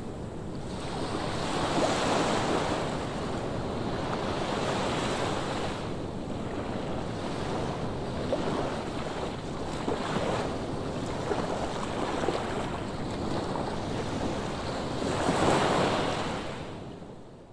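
Ocean surf: waves breaking and washing in, a steady rush of water that swells with each wave, loudest about two seconds in and again near the end, with wind on the microphone. The sound fades out at the very end.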